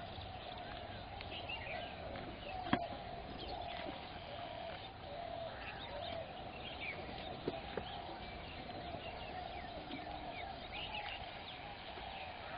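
Wild birds calling in the background: a steady chorus of calls with scattered short chirps over it. A sharp click sounds just under three seconds in, and a fainter one about seven and a half seconds in.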